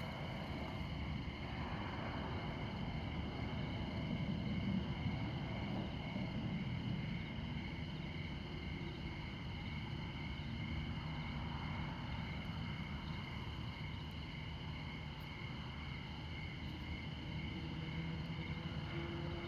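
Crickets chirping in a steady, finely pulsing high trill over the low rumble of interstate highway traffic. The rumble swells as a vehicle passes a few seconds in.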